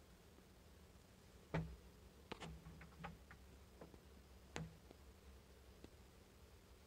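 Near silence with about eight irregular, faint clicks and light knocks. The sharpest come about a second and a half in and again a little past halfway.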